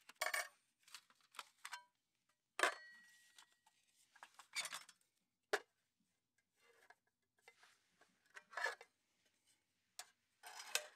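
Metal panels and base plate of a folding Firebox G2 wood stove being unfolded and slotted together: scattered light metallic clicks and scrapes. One clink about two and a half seconds in rings briefly.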